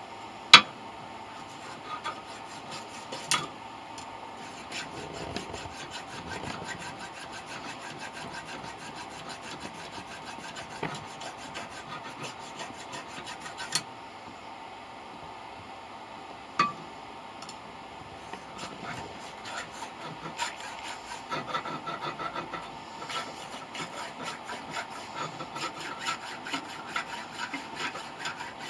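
Hand filing: a file rasping in repeated strokes. A few sharp clicks come in the first half, and the strokes turn quicker and more rhythmic from a little past the middle.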